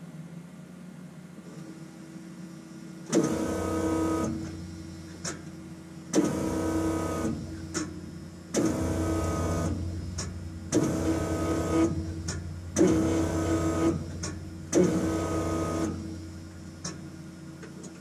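Electric fuel pump of a 1988 Ford F-150 whining in six short runs of about a second each, starting abruptly each time the ignition key is switched on to prime the system and pressure-test a newly repaired plastic fuel line. Light clicks fall between the runs.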